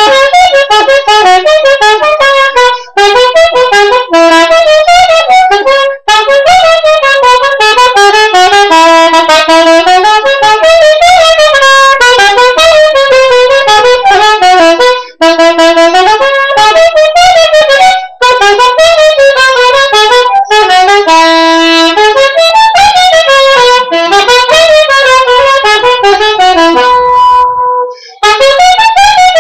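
Soprano saxophone playing a loud, fast melody of short moving notes, broken by brief breath pauses a few times, with one long held note near the end.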